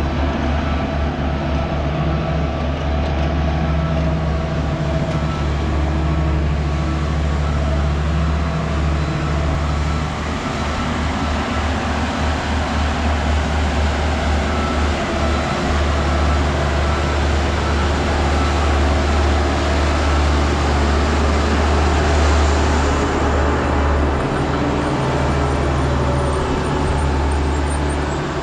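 Motor vehicle road noise: a steady low rumble with a broad hiss of tyres on asphalt, continuing without a break.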